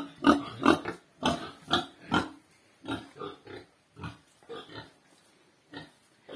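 Domestic pigs grunting: a quick run of short grunts, several a second and loud at first, then sparser and fainter.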